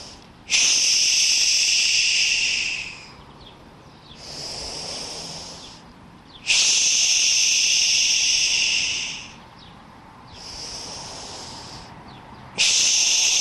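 A woman doing slow yogic breathing: quieter inhales through the nose alternate with loud exhales blown out through the mouth, each starting suddenly and lasting two to three seconds. Three exhales are heard, the last starting near the end.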